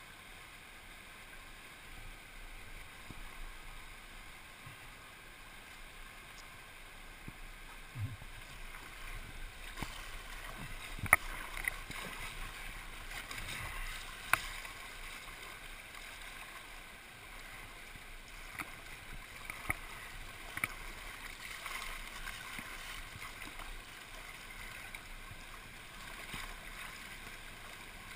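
Kayak moving through a fast, flood-swollen river: a steady hiss of rushing and splashing water against the hull and paddle, with a few sharp knocks.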